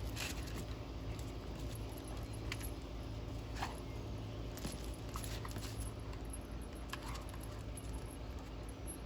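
Small metal tags on a dog's collar jingling now and then, a few light clinks scattered through, over a steady low hum.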